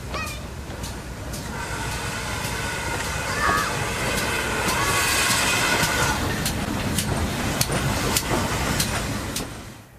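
A train running past, its wheels clicking over the rail joints, swelling through the middle with a pitched whine and fading away near the end.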